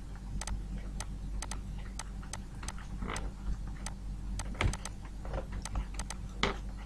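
Stylus tapping and scraping on a pen tablet during handwriting: an irregular run of light clicks, several a second, over a steady low electrical hum.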